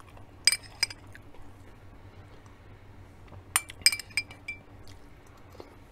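Metal spoon clinking against a glass dish of soup. There are two clinks near the start and a quicker run of three or four about three and a half seconds in, each with a brief ring.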